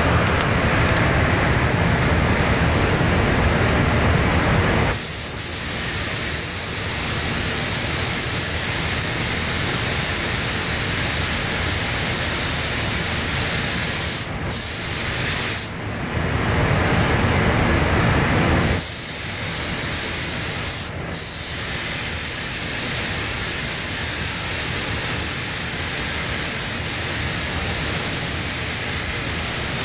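Compressed-air paint spray gun hissing steadily as it sprays, over a low rushing that is heavier for the first five seconds. The hiss cuts out briefly a few times, where the trigger is let go.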